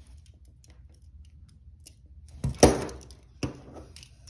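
Steel handcuffs clicking and clattering as a plastic handcuff key is worked in the keyhole, with one loud sharp clatter about two and a half seconds in and a smaller click about a second later.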